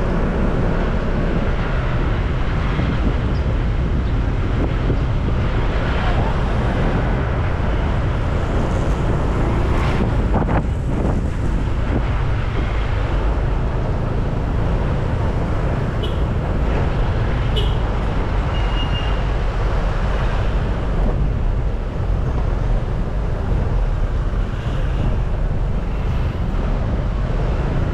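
Steady wind rumble on the action camera's microphone on a moving Honda PCX 150 scooter, mixed with its engine and the noise of passing road traffic.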